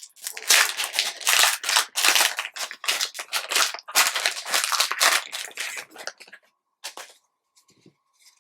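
Trading cards being flipped and slid against each other by hand: a rapid run of papery swishes and snaps for about six seconds, then a few separate clicks near the end.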